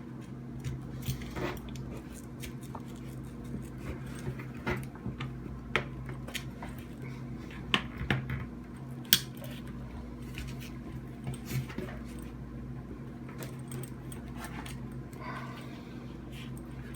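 Needle-nose pliers clicking and knocking against the metal spool and frame of a jammed ratchet strap as the tightly wound webbing is pried loose, in irregular sharp clicks with a few louder knocks, over a steady low hum.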